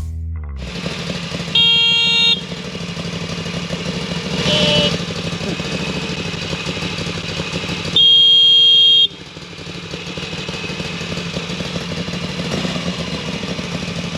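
Motorcycle riding along with steady engine and road noise while its stock horn sounds two short, thin blasts, one near the start and one about two-thirds of the way through. This is the weak factory horn of a Moto Guzzi V85TT. A brief wavering tone comes in between them.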